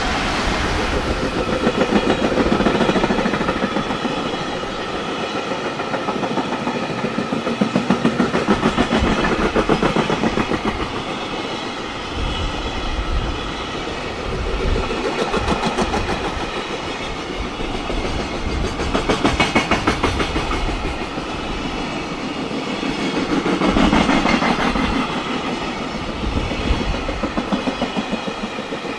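A long freight train's container flat wagons rolling past at speed, their wheels clacking rhythmically over rail joints. The sound swells and fades every four to five seconds as each group of bogies goes by.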